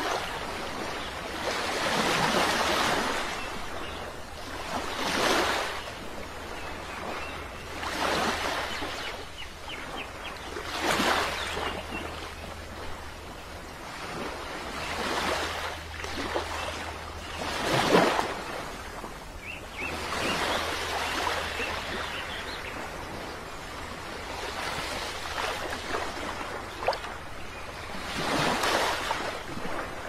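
Small ocean waves breaking and washing up a sandy beach, the surf swelling and fading every three seconds or so, over a low steady rumble.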